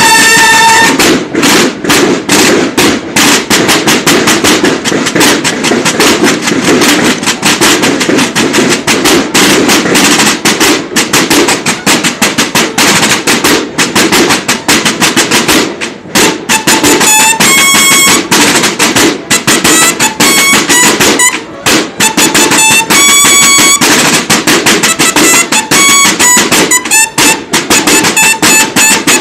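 A banda de guerra's field drums playing loud, fast marching rhythms with rolls. Bugles join in with short, broken calls over the drumming in the second half.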